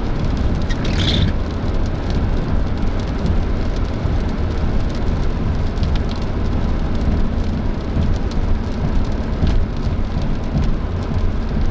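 Inside a moving vehicle: steady road and engine rumble, with rain ticking on the roof and windshield.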